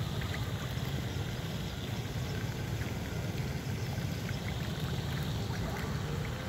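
Lake water lapping and trickling over stones at the shoreline, under a steady low rumble of wind on the microphone.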